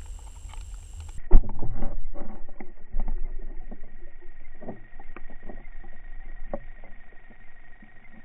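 Muffled underwater sound through a submerged camera: irregular knocks and clicks over a low rumble, with one sharp knock about a second in, and a faint steady high whine.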